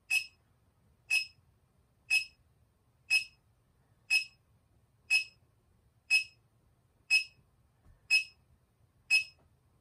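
Electronic beeping from a handheld monitoring meter: a short, high-pitched beep repeating evenly about once a second, ten times.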